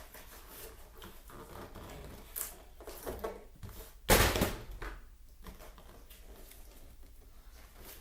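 Plastic toy blaster parts and packaging being handled and rummaged through: light rustling and small clicks, then one loud clatter about four seconds in.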